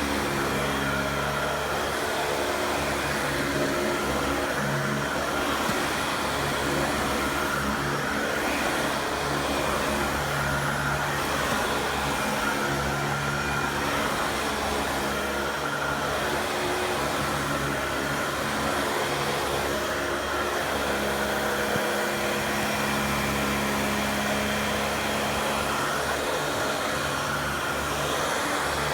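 Dyson DC40 upright bagless vacuum cleaner running steadily: a constant motor hum over a rush of air, its low hum shifting in pitch slightly partway through.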